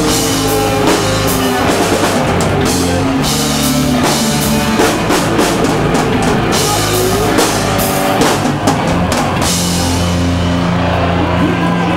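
A rock band playing loud, with a drum kit, bass and electric guitar. Near the end the drums stop, leaving held low notes ringing.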